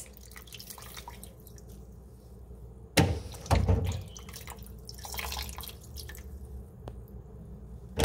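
Wet squelching, splashing and dripping as a hand squeezes and kneads peeled cashew apples in water in a metal pot, washing them and pressing out their acidity. One louder thump about three seconds in.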